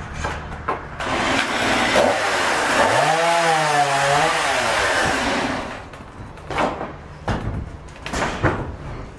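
Edge-trimming saw (board edger) ripping a board lengthwise, a loud steady sawing noise for about five seconds with a tone that rises and wavers partway through. Boards then knock and clatter on the steel table.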